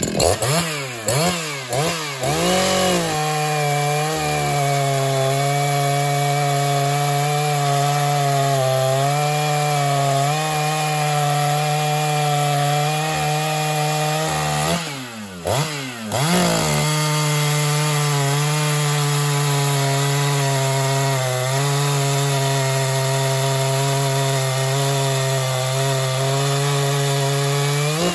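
Ported Echo 4910 two-stroke chainsaw cutting through a 13-inch ash round at full throttle: the engine revs up and holds a steady pitch under load for about twelve seconds. About halfway through it drops back to idle for a moment, then revs up again for another long cut and falls off at the end.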